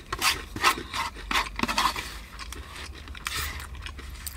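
Close-miked tamarind chutney being drunk from a small dish: a string of short slurping and scraping noises, most of them in the first two seconds.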